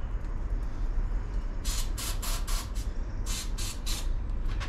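Aerosol can of starting fluid sprayed in short hissing spurts, about four, a brief pause, then three more, into the intake of a riding mower's Briggs & Stratton engine that cranks but won't fire.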